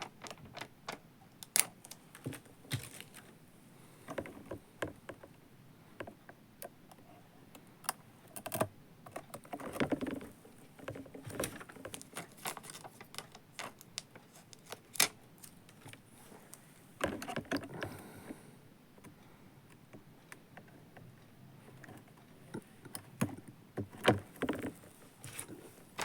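Hands handling small plastic parts and sticky sheets: scattered light clicks and taps, with a few short spells of rustling and peeling.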